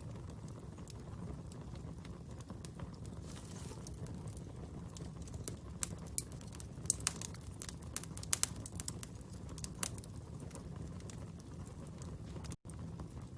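Wood fire burning: a low steady rumble with scattered sharp crackles and pops, most of them in the middle. The sound cuts out for an instant near the end.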